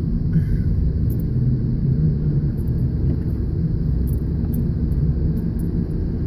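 Car driving along a hill road, heard from inside the cabin: a steady low rumble of engine and tyre noise.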